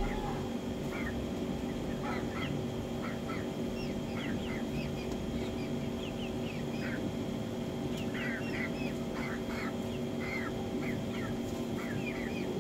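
Hens in a pen calling in short, scattered high notes, over a steady hum.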